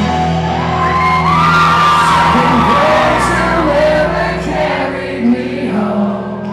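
Live rock band and male lead vocalist performing, the band holding sustained notes under a sung line, with whoops from the audience; the music thins out near the end.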